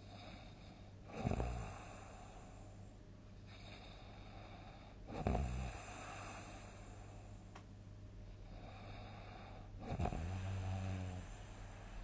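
A person snoring loudly: three heavy snores about four seconds apart, the last one drawn out for about a second, with quieter breathing between them.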